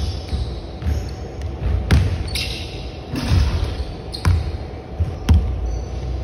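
Basketball bouncing on a hardwood gym floor in a large hall: about six separate bounces at uneven spacing.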